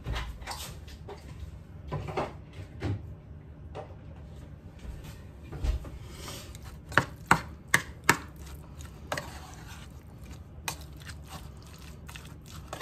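A spoon clinking and scraping against a ceramic bowl as tuna salad is stirred: irregular sharp taps, the loudest few coming close together about seven to eight seconds in.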